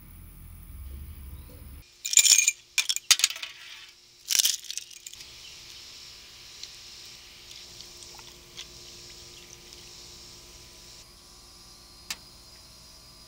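A quick cluster of bright clinks and rattles, like glass and metal kitchenware being handled, in three short bursts, followed by a faint steady high hiss.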